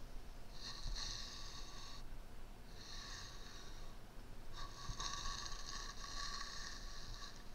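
Soft bristles of an all-over highlight makeup brush brushing across the microphone: three soft hissing strokes, the third longer than the others.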